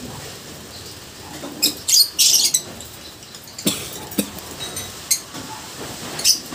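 Pair of caged lovebirds mating, giving rapid, high-pitched squeaky chirps in several bursts, the loudest run about two seconds in.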